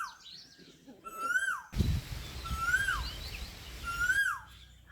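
A bird calling over and over, about once a second, each call a whistled note that rises briefly and then drops, with fainter chirps from other birds behind it.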